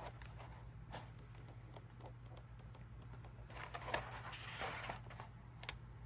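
Pages of a paper planner being handled and turned: light taps and clicks, with a paper rustle from about three and a half to five seconds in.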